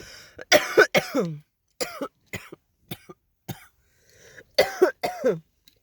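A woman's coughing fit: a loud cluster of voiced coughs, then single smaller coughs, then another loud cluster near the end, leaving her out of breath.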